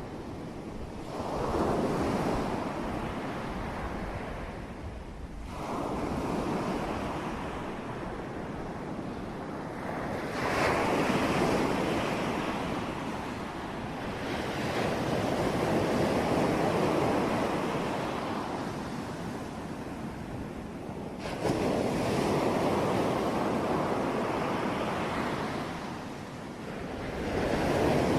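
Ocean waves breaking on the shore, the surf swelling and washing back in repeated surges roughly every five seconds, about six in all. A couple of the breakers hit suddenly.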